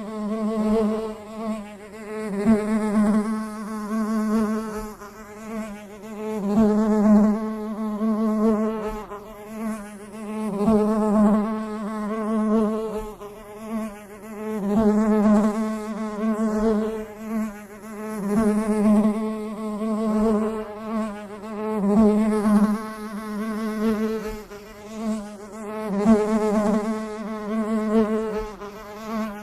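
A bee buzzing in flight: a steady drone that swells and fades about every four seconds.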